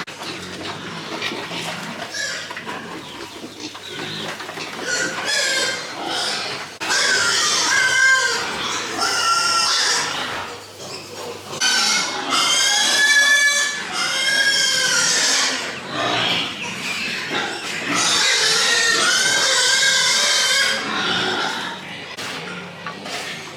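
Pigs squealing: a series of long, high-pitched squeals that rise and fall, the loudest coming in the middle and latter part.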